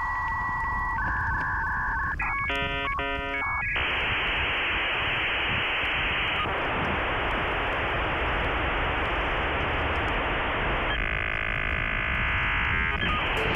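Dial-up modem connecting over a phone line. Steady tones give way to a short run of dialing beeps about two seconds in, then a long hiss of handshake noise with a warbling stretch near the end, all with a thin telephone-line sound.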